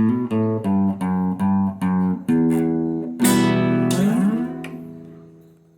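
Guitar closing a song: a quick run of single picked notes and chords, then a final strummed chord a little past three seconds in that rings out and fades away.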